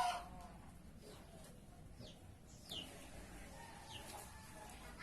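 The tail of a rooster's crow cuts off right at the start. Then a small bird gives three faint, short chirps, each a quick downward-sliding note, spread over the next few seconds.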